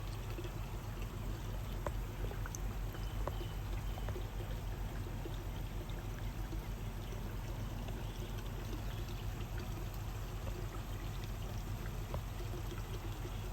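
Water steadily pouring and trickling in aquarium fish tanks, over a constant low hum.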